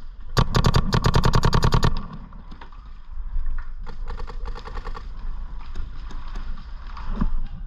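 Planet Eclipse GEO 4 electronic paintball marker firing a fast string of shots, about twelve a second, for roughly a second and a half shortly after the start. A fainter rapid string of paintball shots follows about four seconds in.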